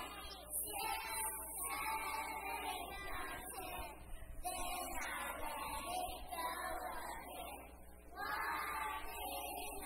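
A group of preschool children singing a song together in unison, in phrases separated by short breaths.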